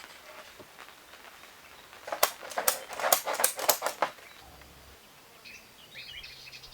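A quick run of about ten sharp knocks or taps over two seconds, starting about two seconds in.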